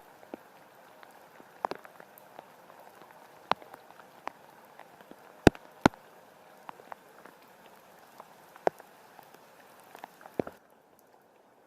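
Rain falling steadily, with individual drops striking close by as irregular sharp ticks, two of them louder a little past the middle. The steady hiss drops away abruptly near the end.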